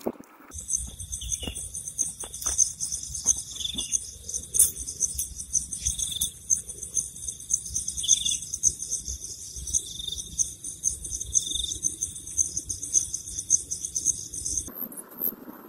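A steady, high-pitched chorus of insects such as crickets trilling, starting and stopping abruptly. Scattered soft clicks and rustles sound underneath.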